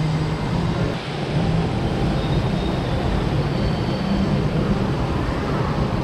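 Steady ambient noise of a large indoor mall hall, with a constant low rumble under a broad hiss and no distinct events.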